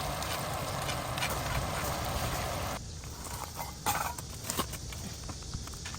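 A steady whirring hum that cuts off suddenly about halfway through, followed by scattered light clicks and knocks of containers and tableware being handled at a table.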